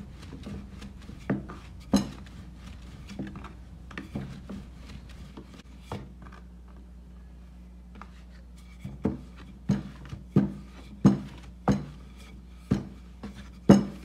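Wooden rolling pin rolling maida dough out on a wooden board: rubbing strokes with a sharp knock of wood on wood at each pass. The knocks are scattered at first and come quickly, about one and a half a second, in the last five seconds.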